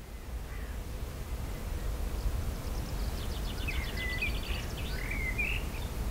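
Steady low wind noise outdoors, with a small songbird singing one short phrase, a quick run of high notes and chirps, from about three seconds in to about five and a half.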